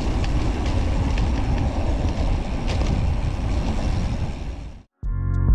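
Wind rushing over the microphone and tyres rumbling on cracked asphalt as a road bike rolls along, with a few light bumps. It cuts off suddenly just before the end, and music starts.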